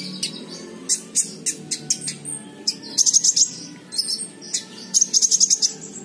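Caged kolibri ninja (van Hasselt's sunbird), a young male in moulting plumage, singing in sharp high chirps broken by two quick, rapid trills about three and five seconds in: a young bird starting to sing often but still learning its full song.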